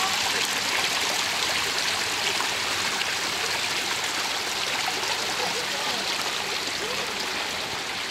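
Water running steadily in a small stream: a constant rushing hiss that doesn't let up.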